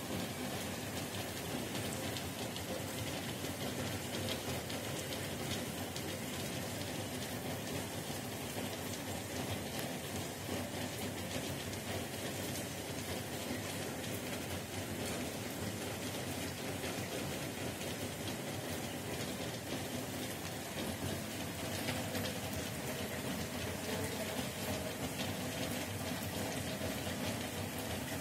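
Heavy rain falling steadily, an even hiss of countless drops.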